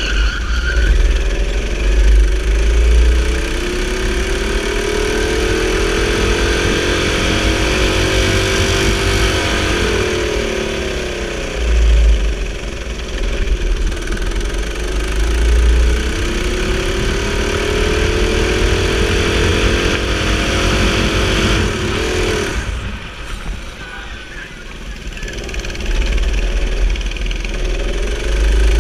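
Go-kart engine heard from onboard, its pitch climbing steadily as the kart speeds up along the straights and falling away as it slows for the corners. It climbs three times, with a sharp drop about three-quarters of the way through, over a deep rumble underneath.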